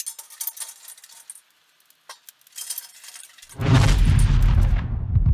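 Intro sound effects: scattered high clinks and crackles, then about three and a half seconds in a sudden loud whoosh with a deep rumble.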